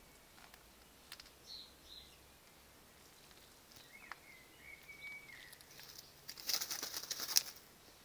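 Pet rabbit digging in loose gravel: a few light clicks of paws on the stones, then, about six seconds in, a burst of scrabbling lasting about a second, with stones rattling and scraping.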